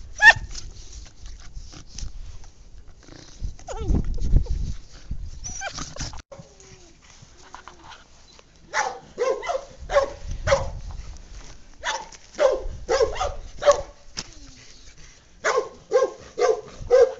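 English Cocker and Labrador puppies yapping in play: quick runs of short, high barks, about two or three a second, starting about nine seconds in and again near the end.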